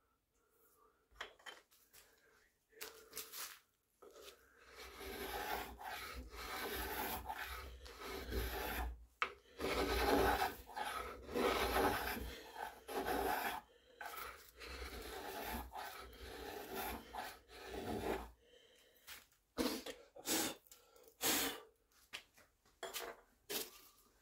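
A small metal hand tool scraping and rubbing along the barrel channel of a wooden rifle stock, working loose chips of glass-fibre bedding compound, in a long run of strokes. After the scraping stops, a few separate light taps and clicks follow.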